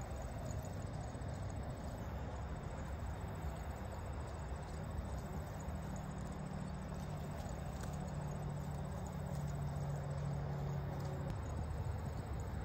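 Steady low outdoor background noise, with a faint low drone that comes in about three seconds in and fades out shortly before the end.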